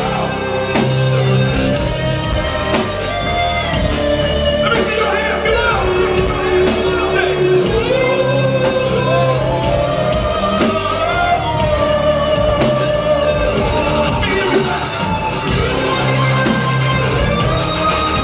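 Progressive metal band playing live and loud: drums, double-neck bass, keyboards and electric guitar together, heard from the audience.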